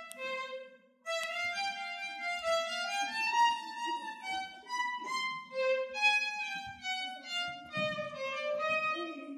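Solo violin playing a melody. A short phrase ends about half a second in, and after a brief pause the tune starts again about a second in and runs on without a break.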